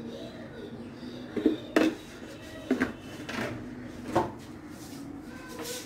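Several sharp knocks and clatters of kitchenware being handled and set down, about five of them spread over a few seconds.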